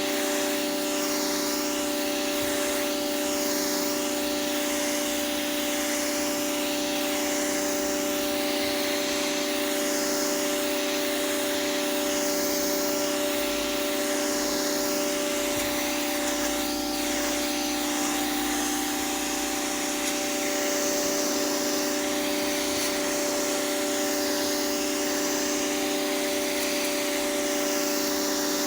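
Pressure washer running steadily: a constant motor hum under the hiss of the water jet on pavement, the hiss swelling and fading slowly as the spray is swept back and forth.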